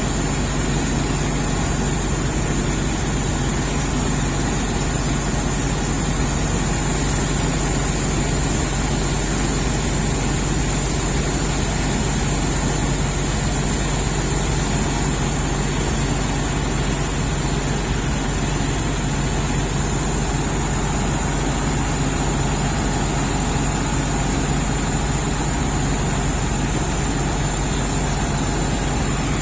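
Heavy diesel engines idling steadily: a constant low drone with no revving or changes in pitch.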